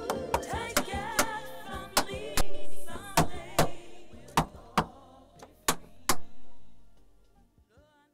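Tap-dance steps, sharp irregular taps with a few heavier strikes, over music; taps and music fade out together near the end.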